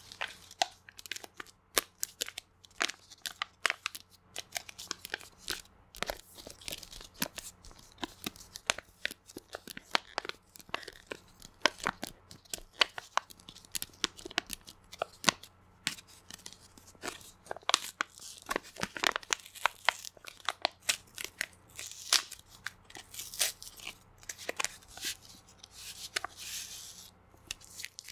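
A paper-and-plastic packet of Japanese cooling gel sheets being crinkled and torn open by hands with long acrylic nails: a dense, irregular run of sharp crackles, rustles and clicks.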